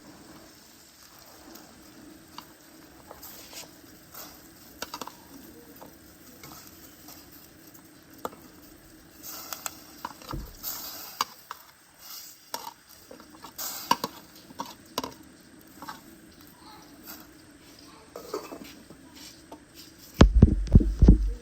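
Cooking-pot sounds: scattered light clinks, knocks and scrapes of a utensil stirring soup in a pot. A loud burst of low thuds comes near the end.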